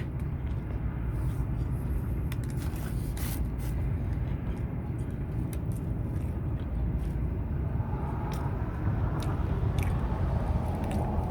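Chewing and biting into a toasted steak, egg and cheese bagel, with small crunches and mouth clicks, over a steady low rumble.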